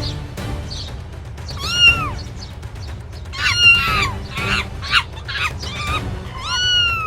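Several high, pitched animal cries that rise and fall, the last one long and drawn out near the end, over background music.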